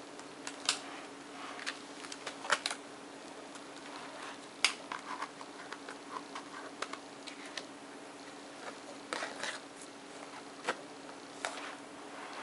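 Stiff card pages and pop-up pieces of a pop-up book being handled and turned close to the microphone: scattered crisp clicks, taps and short paper rustles at an uneven pace. A faint steady hum runs underneath.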